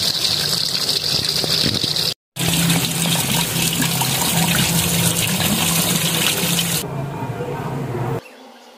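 Tap water running hard and splashing over eggplants in a plastic tub as they are rubbed clean under the stream. The sound cuts out briefly about two seconds in and stops near the end.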